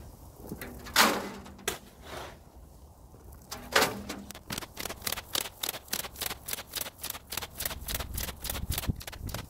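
A steel shovel scraping into a pile of granite gravel and tipping it into the steel skip of a tracked powered barrow, two loud strokes with a short ring. About halfway through, a fast, even run of gravel-shovelling clatters sets in, about five a second.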